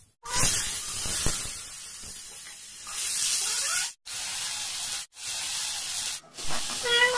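Chopped potatoes dropped into hot oil with cumin in a kadhai: a sudden loud sizzle that settles into a steady frying hiss. The hiss cuts out twice for a moment.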